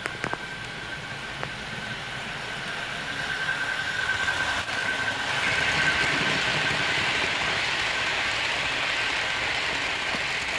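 Märklin model California Zephyr train rolling past on the track, the running noise of its wheels and cars swelling about halfway in as the stainless passenger cars pass close. A steady high whine runs under it.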